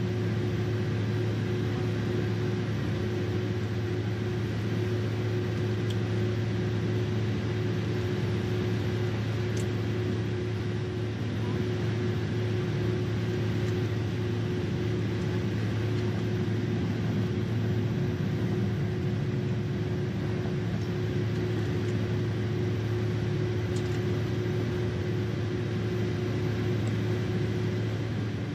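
Steady cabin noise of a Boeing 767-300ER taxiing, heard from inside the cabin: engines and air systems making an even hum with a low drone and a steady held tone above it.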